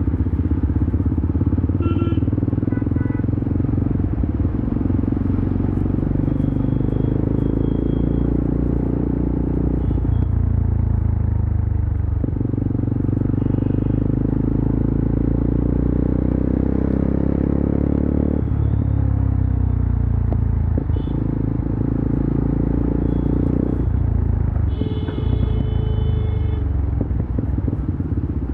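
Yezdi Adventure's single-cylinder engine and exhaust running under way. The pitch climbs steadily as it revs through a gear and drops sharply at each gear change, three times. A few short high beeps sound over it, the loudest near the end.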